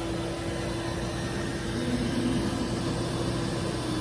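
Vacuum ice cream vending machine running while its gantry lowers the suction hose into the freezer: a steady mechanical hum with one constant tone over a noisy hiss.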